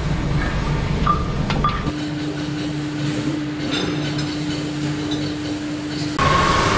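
Steady workshop machinery hum with a few light metal clinks in the first two seconds. About two seconds in, a steady low drone sets in, and near the end the sound shifts to a brighter running noise with a higher steady tone.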